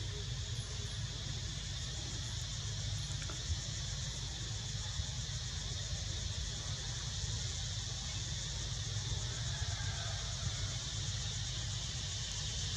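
Steady chorus of insects, an even high-pitched drone that never lets up, over a low rumble.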